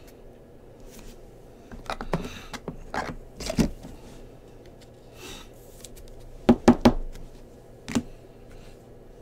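Trading cards and a rigid plastic top loader handled on a table: scattered light clicks, taps and scrapes, with three quick knocks about two thirds of the way through and one more a second later.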